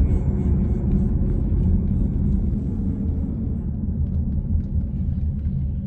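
Steady road and engine noise inside a moving car's cabin, mostly deep in pitch.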